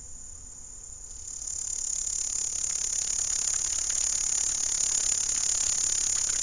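Insect stridulating: a continuous high-pitched, finely ticking shrill that grows louder over about a second, starting about a second in, and then holds steady.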